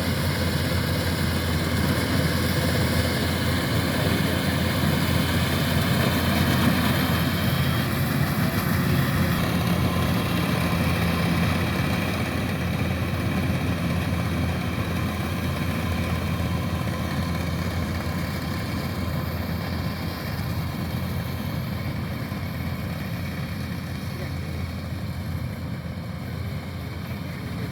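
Kubota rice combine harvester's diesel engine running steadily with a constant low drone, easing off slightly in level over the last part.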